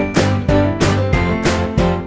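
Background music with a steady, bouncy beat of about three to four notes a second.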